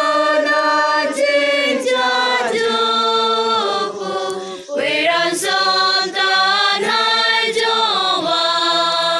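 A choir singing slow, long held notes, with a short break about halfway through.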